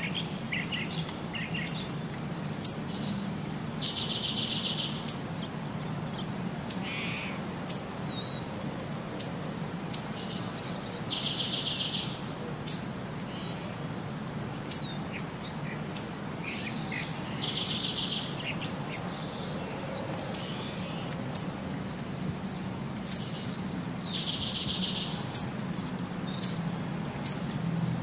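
Birdsong of small songbirds: sharp high chirps a few times a second, and a short buzzy trill that comes back about every six to seven seconds, as a looped recording does. A faint low steady hum lies underneath.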